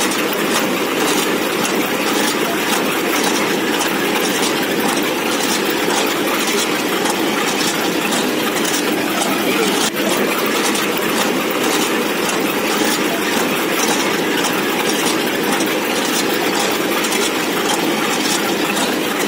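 Puffed-rice (muri) making machine running: its rotating drum and sieve give a steady, continuous clatter of tumbling grain with rapid faint ticks.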